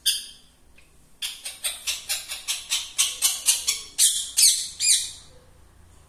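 Caged rose-ringed parakeet calling: one short shrill call, then after about a second a fast run of shrill calls, about four a second, growing louder and stopping about a second before the end.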